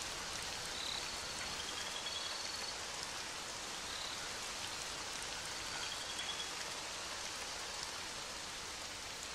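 Steady rain, an even hiss of falling rain, with a few faint short high chirps now and then.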